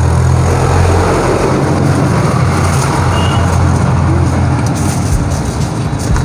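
A motor vehicle's engine running close by: a steady low drone. Crinkling of aluminium foil being handled joins it in the second half.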